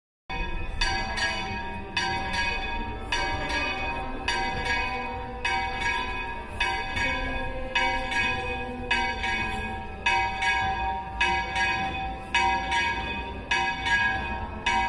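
Church bells ringing in a steady rhythm, the strokes coming in close pairs a little more than once a second, each bell's tone hanging on between strokes.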